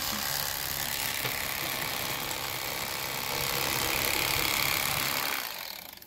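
Corded electric fillet knife running as its reciprocating blade saws through a walleye: a steady motor buzz that grows a little louder in the second half and cuts off near the end.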